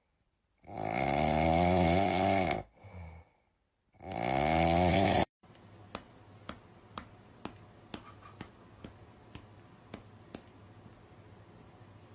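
Two long, loud snores, each followed by a short fainter breath, then faint regular ticking about twice a second.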